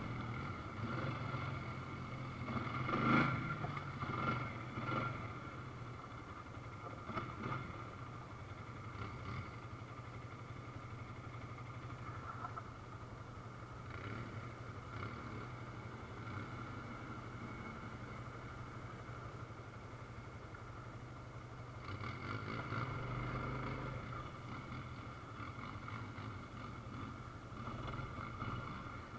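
ATV engine running steadily while riding, with a few knocks and rattles over the first several seconds and a slight rise in engine sound later on.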